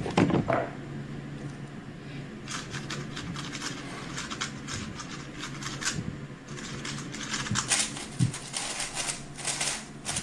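A speed cube being turned very fast: dense, rapid clicking and clacking of its plastic layers. It starts about two and a half seconds in, after a quieter stretch.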